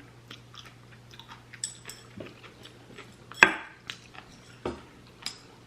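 Eating sounds: cutlery clicking against a dish between bites and chewing, with one sharp clink about three and a half seconds in.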